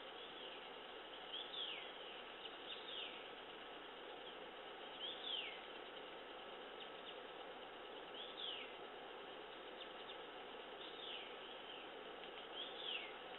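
A bird call, a short whistle falling in pitch, repeated about six times every one to three seconds over a steady background of forest insects.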